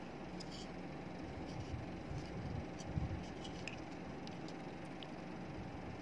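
Handling noise from a small charger circuit board turned over in the fingers: a few faint clicks and a soft bump about three seconds in, over a steady low background rumble.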